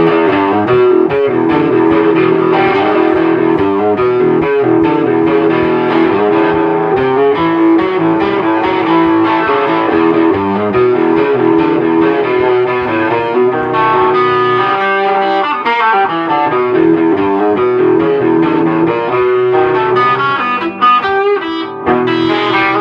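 Electric guitar, plausibly the 1954 Gibson Les Paul Goldtop, played continuously as a stream of changing notes and chords.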